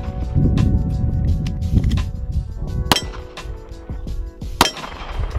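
Handgun shots: two sharp cracks, about three seconds in and a second and a half later, over background music with steady tones.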